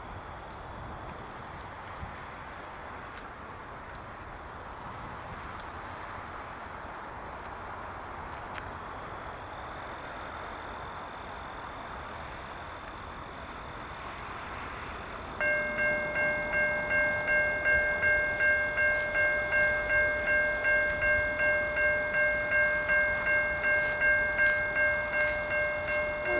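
A faint steady rush, then about 15 seconds in a railway grade-crossing warning bell starts ringing, about two strikes a second, signalling the approaching train.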